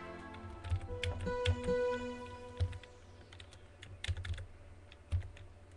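Irregular clicks and taps of computer keys and mouse, while a stacked synthesizer chord fades out and a few quiet synth notes sound.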